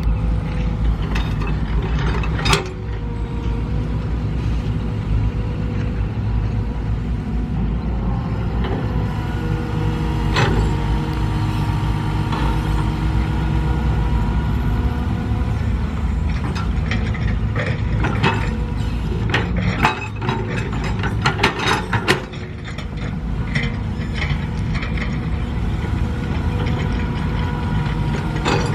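Mini excavator's diesel engine running steadily under load while it digs, with repeated metallic clanks and knocks from the bucket and arm linkage, coming thickest in a burst near the end.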